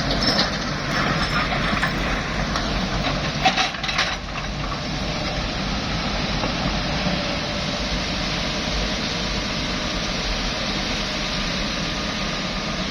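Excavator's diesel engine running steadily under work, with a few sharp knocks in the first four seconds.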